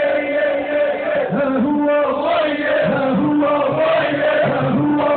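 A group of men singing a chant together in chorus, loud and without pause.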